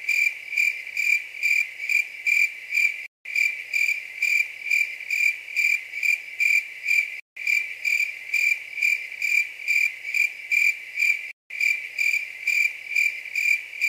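The stock looped cricket-chirping sound effect used as the gag for an awkward silence: a steady high chirp pulsing a little over twice a second. The loop drops out briefly three times, about every four seconds.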